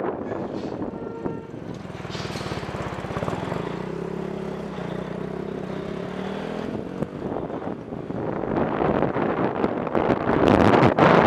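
Motorcycle engine running at low speed through a turn, then accelerating with its pitch rising. From about eight seconds in, wind noise on the microphone builds as the bike picks up speed and becomes the loudest sound near the end.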